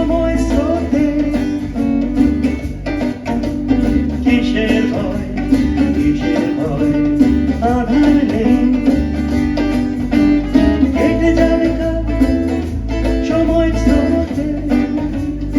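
Live band playing a reggae song: strummed guitar over a steady bass line, with the music fading out just after the end.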